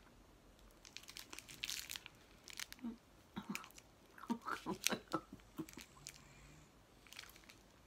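Close-up chewing of a dark-chocolate-covered hard caramel bar, wet mouth clicks and bites, with the plastic wrapper crinkling in the hand. The busiest stretch of chewing comes a little past the middle.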